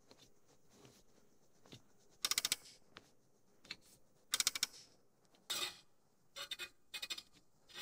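Micro-adjust knob on an Incra TS-LS table saw fence being turned, clicking through its detents in several short, quick bursts. Each click moves the fence a thousandth of an inch toward the saw blade.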